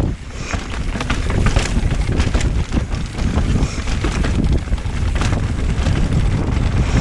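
Wind buffeting the microphone while a mountain bike descends a rough trail, its tyres, chain and frame rattling, with many short knocks over bumps.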